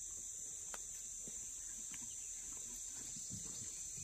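Steady, high-pitched insect chorus, unbroken throughout, with a couple of faint clicks.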